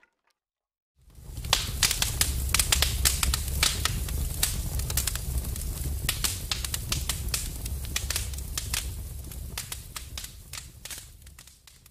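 Fire crackling sound effect: dense, irregular sharp crackles over a low rumble, starting about a second in and fading out near the end.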